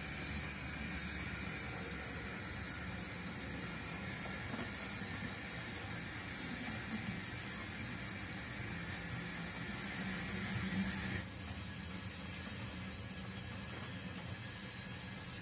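0 gauge model train running past on the layout track: a steady low rumble under an even hiss. The hiss drops away abruptly about eleven seconds in.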